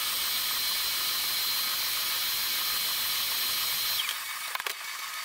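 Vacuum cleaner running with a steady hiss and a thin high whine, used to clean dirt out of a production printer; about four seconds in it is switched off and its whine winds down, followed by a couple of clicks.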